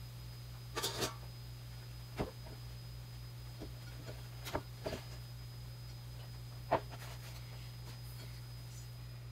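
Steady low electrical hum of a portable induction cooktop heating a frying pan, with a few light clicks and knocks of kitchen utensils; the sharpest knock comes about seven seconds in.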